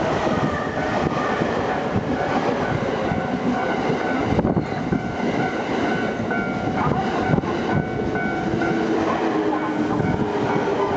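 Yokosuka Line electric train running through a level crossing inside a station: a loud, steady rolling noise with a few thin steady tones over it.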